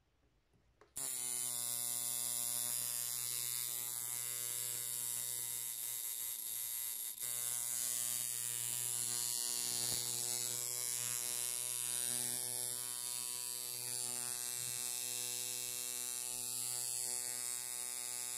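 Handmade coil tattoo machine switched on about a second in, then running with a steady electric buzz, dipping briefly about seven seconds in.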